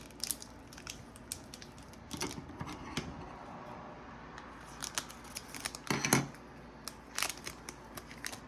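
Foil trading-card booster pack being opened and handled: crinkling and tearing of the wrapper with scattered small clicks and rustles.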